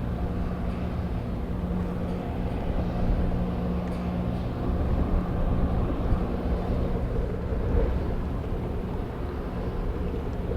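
Steady low drone of the arriving ro-pax ferry AF Francesca's engines. Its hum thins out about seven seconds in, over a constant rushing background.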